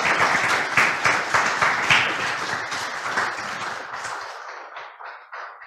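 Audience applauding, the clapping thinning out and fading over the last couple of seconds.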